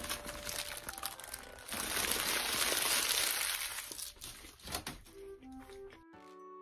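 Paper burger wrapper crinkling and being crumpled, loudest for about two seconds in the middle, over soft background music.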